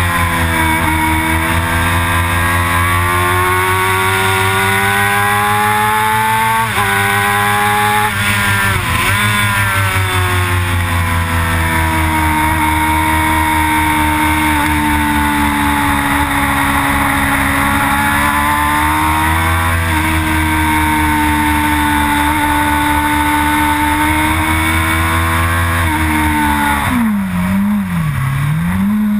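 Sport motorcycle engine running hard on a racetrack. Its pitch climbs under throttle, drops sharply at about seven seconds, dips again near nine, holds steady through a long stretch, then shifts near twenty seconds. Near the end it makes two quick dips and recoveries as the rider slows for a corner and changes down.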